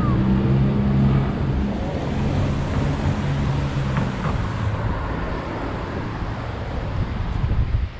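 City traffic heard while skating, with wind rushing over the microphone and a car driving past close by, its low engine hum fading about halfway through.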